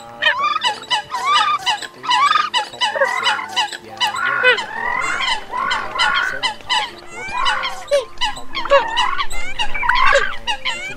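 Eurasian coot calls: a dense chorus of short, sharp calls from many birds overlapping, several a second, as played in a looped lure recording for bird netting. Faint background music with held notes lies underneath.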